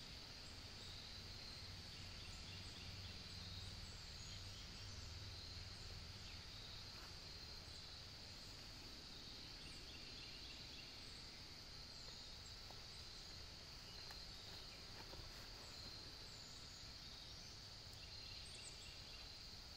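Faint woodland ambience: a steady high-pitched insect chorus, with a few short bird chirps now and then.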